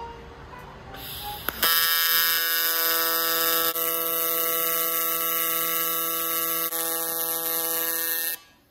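AC TIG welding arc on aluminum from a Miller Dynasty 280 running at 165 Hz AC frequency with amps maxed: a steady, loud buzzing hum that starts sharply about two seconds in and cuts off sharply near the end.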